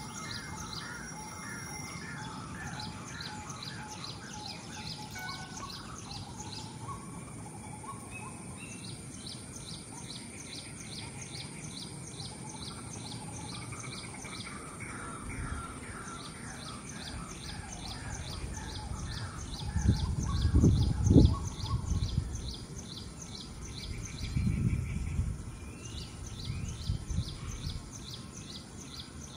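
Small birds chirping in rapid, evenly repeated high notes, with a second run of lower repeated notes near the start and again about halfway. About two-thirds of the way in come bursts of low rumbling noise, the loudest sound here.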